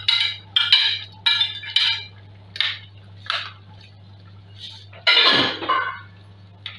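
Metal spoon clinking and scraping against a stainless steel pot while meat is stirred into thick soup: a run of short clinks in the first few seconds, then a louder clatter about five seconds in.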